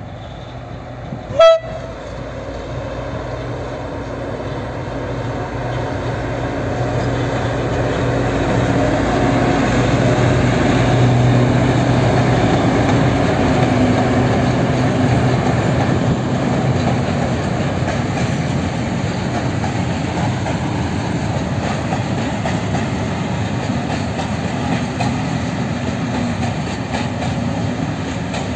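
A short horn toot about a second and a half in. Then two PKP Cargo ST44 (M62) diesel locomotives with two-stroke V12 engines run past at the head of a freight train, their engine drone building to a peak, then giving way to the steady rumble and clickety-clack of open freight wagons rolling by.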